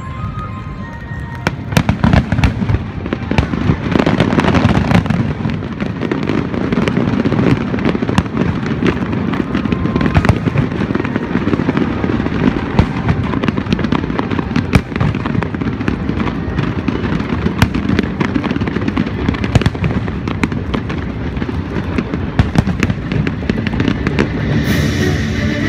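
Fireworks display: a dense, continuous run of booms and crackling bursts over a steady low rumble.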